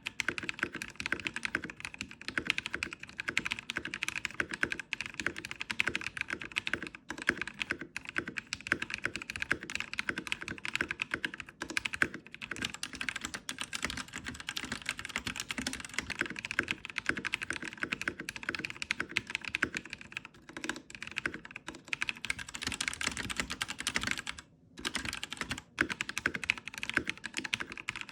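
Fast continuous typing on a Royal Kludge RK84 mechanical keyboard modded with lubed brown tactile switches, tape, foam and stabilizer mods, giving a "thocc" keystroke sound. The typing breaks off briefly twice near the end.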